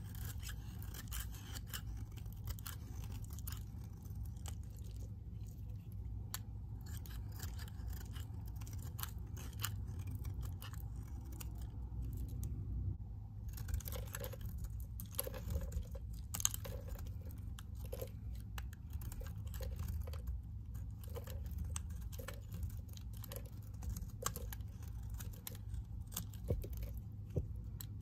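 A snap-off utility knife blade shaving thin curls from a bar of green soap: a continuous run of soft scraping and crisp crackling cuts, with a low steady hum underneath.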